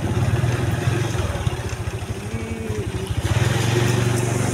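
Small motorcycle engine running at low speed, labouring over a rough track, with its firing pulses getting louder and steadier about three seconds in.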